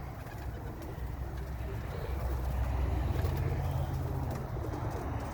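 Domestic pigeons cooing over a low, steady rumble.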